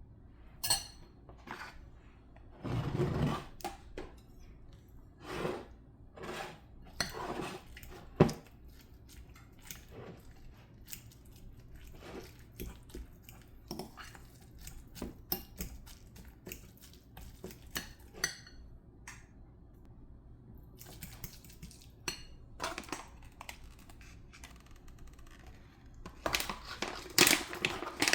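Kitchen utensils and dishes clinking, knocking and scraping at an irregular pace during food preparation. There is a heavier thud about three seconds in and a flurry of clatter near the end.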